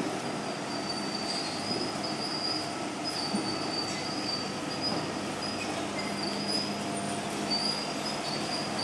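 Crawler bulldozer at work: its diesel engine runs steadily under a high-pitched metallic squeal from the steel tracks that keeps breaking off and starting again.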